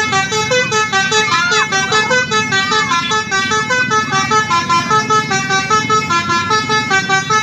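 Telolet basuri musical air horn on a bus playing a quick melody, its notes stepping up and down about three or four times a second.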